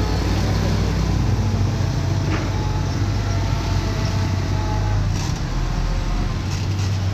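Diesel engine of a Shantui DH crawler bulldozer running steadily, with a few faint clicks from the machine about two, five and six and a half seconds in.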